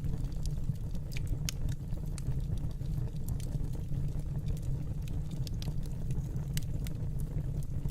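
Wood fire in a fireplace burning, a steady low rumble with irregular sharp crackles and pops.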